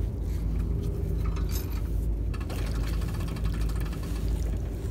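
A steady low motor drone runs throughout. Over it, a magnet-fishing magnet on its rope splashes into the river water, with short splashy hiss about halfway through.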